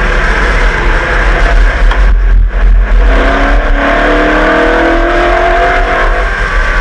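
Holden V8 race engine of the 1989 HRT Walkinshaw VL Commodore Group A car under load, with a brief lift a little over two seconds in, then pulling hard with the revs climbing steadily from about three seconds in.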